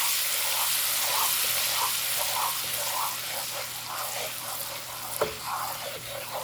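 Butter sauce with seasonings and minced garlic sizzling in a pan, stirred in a steady rhythm, with a single sharp click about five seconds in.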